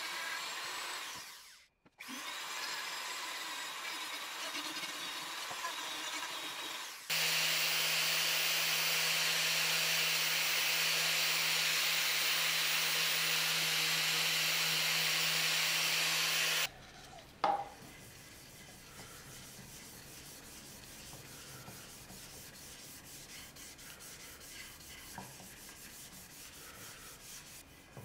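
Flexible-shaft rotary carving tool grinding wood with a small burr, briefly stopping near 2 s. At about 7 s an angle grinder with a sanding disc takes over, sanding the wooden bowl's hollow with a louder, steady hum, and cuts off suddenly near 17 s. After a knock comes quiet rubbing of a cloth wiping finish onto the wood.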